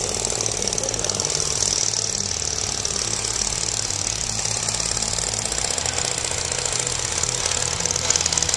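An engine running steadily with a fast, even rattle.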